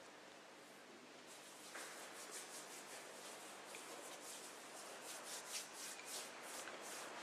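Faint rhythmic rubbing of hands, soft swishes several times a second, growing louder from about a second and a half in. It is typical of hand sanitiser being rubbed in.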